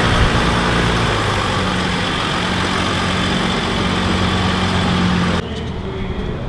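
Mercedes-Benz Sprinter 4x4 van's diesel engine running at a steady idle hum, dropping off abruptly near the end.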